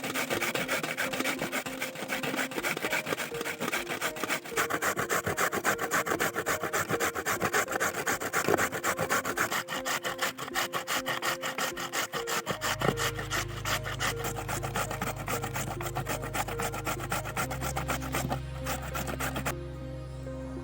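Carrots being grated on a metal grater: rapid, rhythmic rasping strokes that stop shortly before the end.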